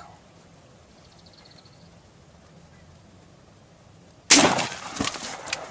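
Quiet outdoors, then a single loud shotgun shot a little over four seconds in, followed by rustling and scattered knocks.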